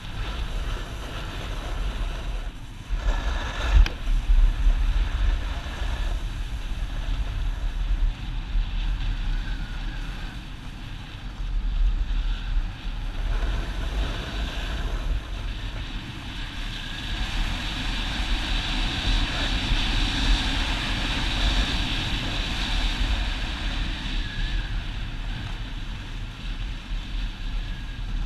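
Snowboard sliding and scraping over groomed snow with wind rushing over the action camera's microphone: a steady rumble and hiss, with a louder stretch of scraping about three to four seconds in.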